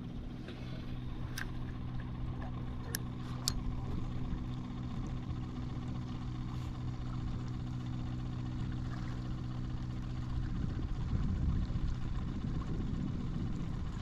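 An engine idling steadily, stopping about ten and a half seconds in, over low wind rumble on the microphone, with a few sharp clicks in the first few seconds.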